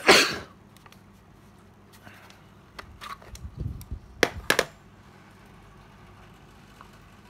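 Handling noise from a cordless power tool and its battery pack. A loud knock comes right at the start, then a few sharp clicks and a low knock about three to four seconds in. No motor runs.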